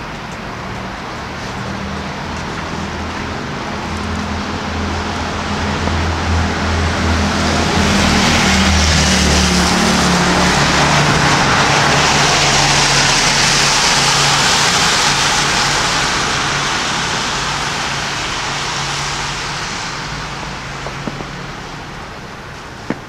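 A motor vehicle passing close by on the street: a low engine hum with a rising hiss of tyres that swells over several seconds, is loudest around the middle, then fades away.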